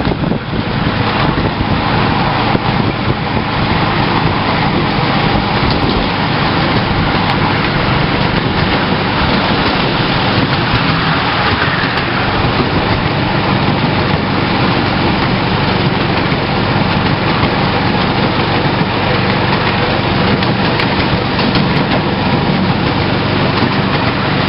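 Steady running noise of a 7.25-inch gauge miniature train, heard from a passenger car on the move.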